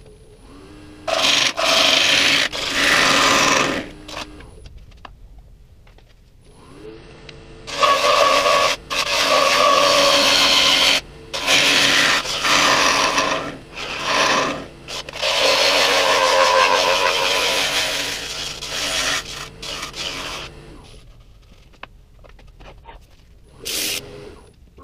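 A gouge cutting the inside of a spinning pin oak bowl on a wood lathe, in several long scraping passes over the lathe's steady hum. The cutting stops near the end, then there is a short scratch of sandpaper against the turning bowl.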